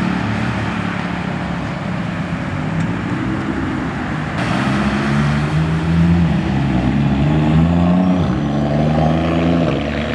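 Car engine and exhaust accelerating hard as the car pulls away. Its pitch climbs, drops back about eight seconds in, and climbs again.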